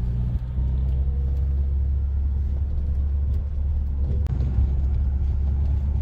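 Passenger van driving along, heard from inside the cabin: a steady low road and engine rumble, with a faint click about four seconds in.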